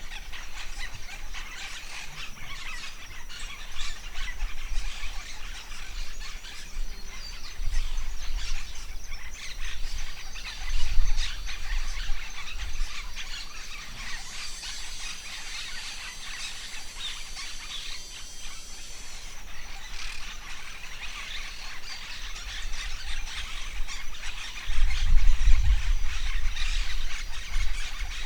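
Forest birds chirping and calling continuously over a steady high-pitched hum, with gusts of wind rumbling on the microphone about a third of the way in and again near the end.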